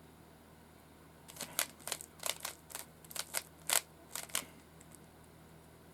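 Rubik's cube layers being twisted by hand: a quick run of plastic clicks and clacks starting about a second in and lasting about three seconds.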